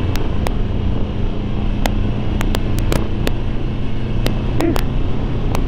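2009 Harley-Davidson Sportster 1200 Low's air-cooled V-twin running steadily while cruising at around 40 to 45 mph, with a scattering of sharp clicks over the engine sound.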